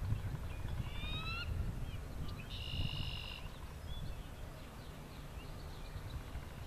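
Eagle calling: a few short, rising, high-pitched whistled notes about a second in and a brief held note near the middle, over wind rumbling on the microphone.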